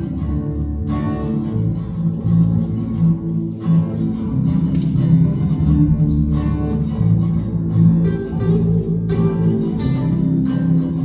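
Instrumental introduction of a song, led by plucked guitar over steady bass notes, with no singing yet.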